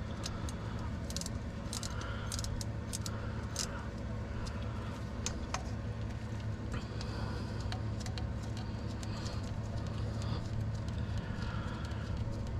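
Irregular metallic clicks and clinks of a ratchet on a long extension, working loose the starter wire nut, over a steady low hum.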